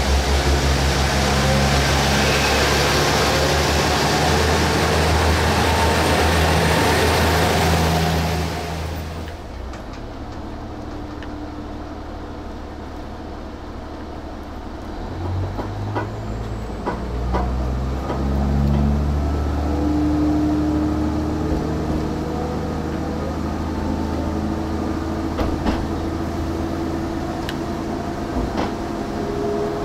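KiHa 110-series diesel railcar idling at the platform with a steady, loud engine hum. About nine seconds in, the sound switches to inside the moving railcar: a duller diesel engine note that rises and settles, with scattered clicks from the running gear.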